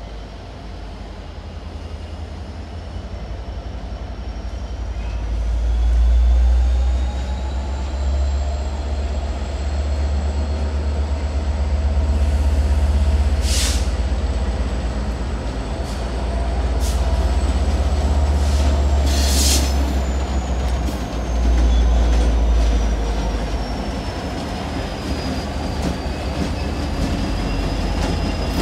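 CSX diesel locomotives working as a freight train approaches and passes close by, the engines running with a deep rumble that swells as the units draw near. Over it a thin high wheel squeal slowly rises and falls in pitch, with a couple of brief sharp screeches around the middle.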